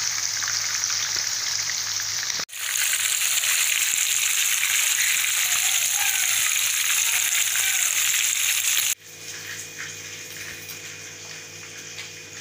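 Oil sizzling steadily around marinated chicken legs shallow-frying in a pan, a dense hiss that grows louder after a brief break about two and a half seconds in. The sizzling cuts off abruptly about nine seconds in, leaving a much quieter low steady hum.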